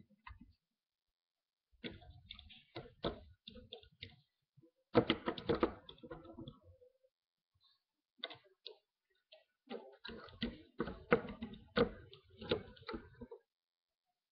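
Small plastic clicks and taps as a hook and rubber bands work over the pegs of a plastic bracelet loom. They come in several irregular clusters with short pauses and stop about a second before the end.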